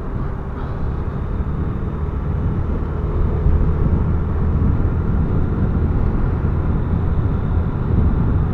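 Yamaha Fazer 250's single-cylinder engine running under way as the motorcycle picks up speed, mixed with a steady rush of wind noise; the sound gets louder about three seconds in.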